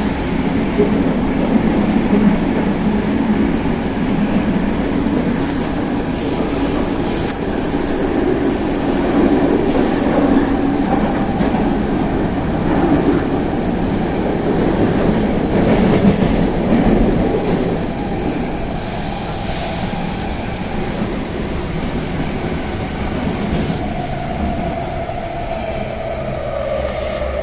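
Athens Metro Line 2 train running, heard from inside the passenger car: a steady rumble with wheel and track noise. Near the end a whine falls gently in pitch.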